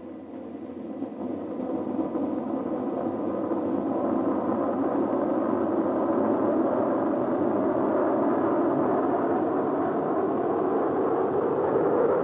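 Roar of the Mercury-Atlas 9 rocket's Atlas engines during liftoff and climb: a steady rumbling noise that swells over the first few seconds and then holds.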